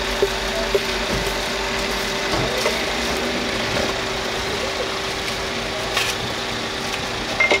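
Steady mechanical hum of the food truck, with two sharp knocks in the first second of a knife chopping on a wooden cutting board.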